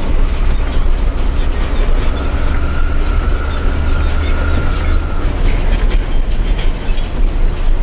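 Isuzu Giga 285 PS truck's diesel engine running under way, heard inside the cab as a deep, steady drone with frequent clicks and rattles. A faint high whine comes in about two seconds in and stops about five seconds in.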